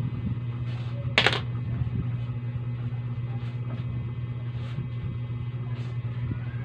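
A plastic comb swishing softly through long straight hair in several strokes, with one sharp click about a second in, over a steady low hum.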